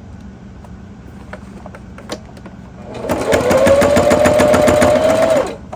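Sewing machine stitching through a thick filled pillow: a few light clicks, then about three seconds in the motor starts, its whine rising to a steady pitch over fast, even needle strokes, and it stops suddenly near the end.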